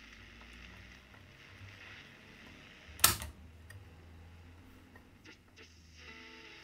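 Siemens Super G7 tube radio on shortwave giving only a faint low hum and hiss, its audio output far too weak because of a fault still being traced in the audio stage. One sharp click sounds about three seconds in as the radio's controls are worked.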